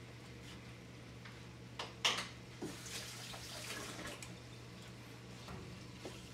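Onions and tomatoes sizzling faintly in a stainless steel pan, over a low steady hum. A sharp clink comes about two seconds in, with a few light knocks around it.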